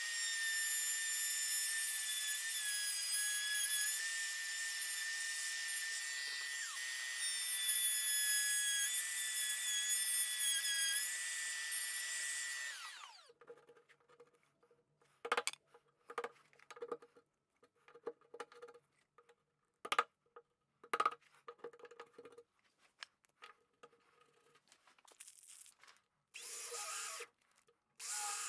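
Makita trim router running at a high whine while routing hinge recesses through a hinge jig, its pitch dipping briefly as it cuts, then winding down about 13 seconds in. Light taps and scrapes of a chisel squaring up the recess follow, and near the end a cordless drill-driver gives short bursts driving the hinge screws.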